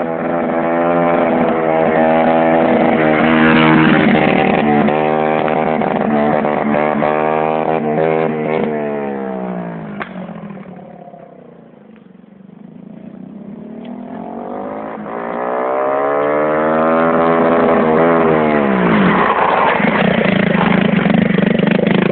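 Derestricted 50cc quad bike's engine revving as it is ridden. About halfway through, the pitch drops and the sound fades as the quad moves off. It then comes back louder with the revs rising, and the pitch drops again as it passes close by near the end.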